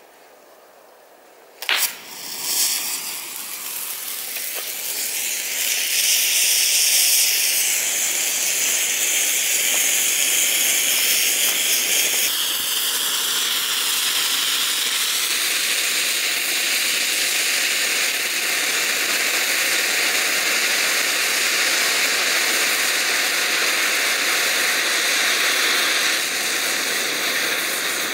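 A 25-year-old pyrotechnic distress hand flare ignites with a sharp pop about two seconds in. It then burns with a steady hiss that builds over the next few seconds and stays loud.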